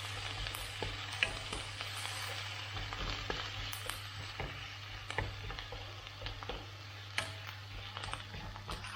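Chopped onion and ginger sizzling in hot oil in a pan as they fry until brown, with frequent sharp clicks and scrapes of a utensil stirring them against the pan.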